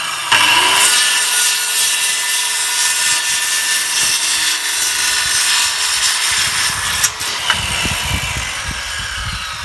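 DeWalt DWE560 184 mm circular saw with a 1350 W mains motor, running and cutting through wood in one steady pass of about seven seconds. Near the end the cut finishes and the sound winds down.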